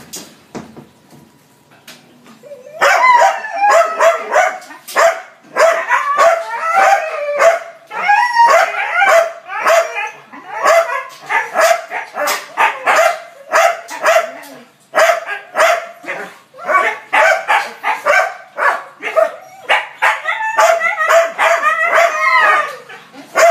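Huskies barking and making high, wavering calls in an excited greeting. The calls follow one another almost without a break, starting about three seconds in.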